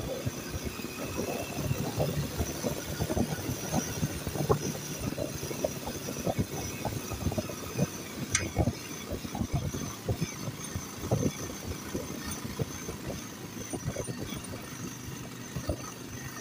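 Motorcycle engine running while riding over a rough gravel road, with a constant jumble of low thumps and rattles from the bumps. A single sharp click about eight seconds in.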